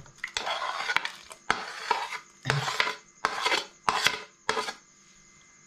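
A white spoon scraping sliced banana off a patterned plate into a pot of custard: a run of short scrapes and clinks of the spoon on the plate.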